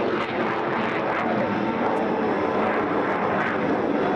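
Jet roar of a CF-18 Hornet's twin General Electric F404 engines in full afterburner as the fighter climbs straight up and away, a steady, even noise.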